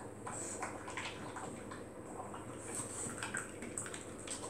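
Dog eating from a bowl of kibble mixed with chopped cooked meat: irregular chewing and wet mouth noises.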